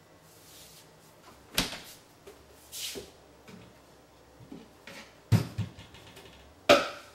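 A few separate knocks and thumps in a small room, including a low double thump, with a short hiss about three seconds in.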